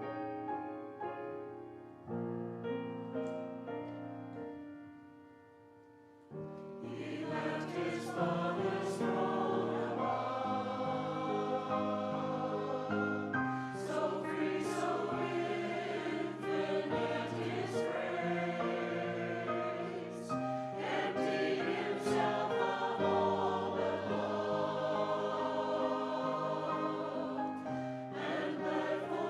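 A hymn: a soft keyboard passage fades away, then from about six seconds in a group of voices sings together with keyboard accompaniment.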